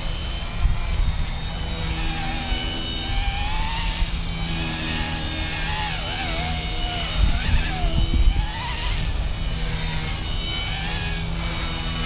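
Small electric RC helicopter (Blade 130 S collective-pitch mechanics) in flight: a steady high motor whine with the whir of the rotor blades, its pitch rising and falling as it manoeuvres. A few brief low rumbles come about seven to eight seconds in.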